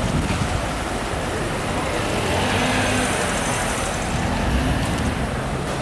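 Steady city traffic noise from cars passing close at low speed, mostly tyre and road noise.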